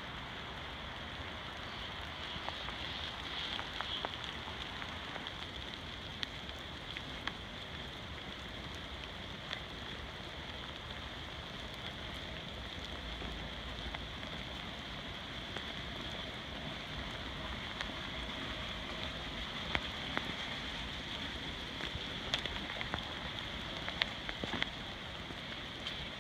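Steady rain falling on forest foliage, a continuous hiss with scattered sharp drop taps.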